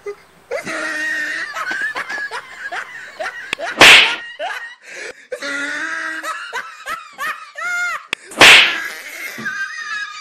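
Laughter, with giggling and chuckling in short wavering bursts, broken by two loud sudden hits about four and eight and a half seconds in.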